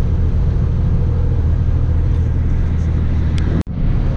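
Manitex 50128 boom truck driving on a highway, heard inside the cab: a steady low drone of the diesel engine and road noise. It cuts out for an instant a little over three and a half seconds in, then carries on.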